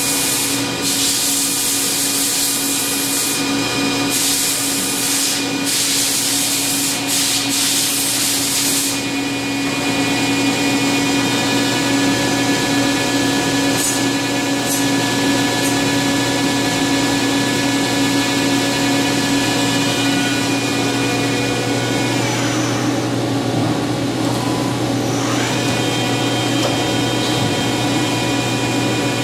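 Okuma LB15 CNC lathe running under power: a steady hum and whine from the spinning spindle and drives, running smooth. In the first nine seconds there are on-and-off bursts of hiss. About 22 s in, the whine dips in pitch and comes back up about three seconds later.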